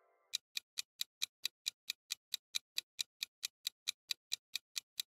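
Countdown-timer ticking sound effect for a quiz question: even, clock-like ticks, about four and a half a second, starting a moment in.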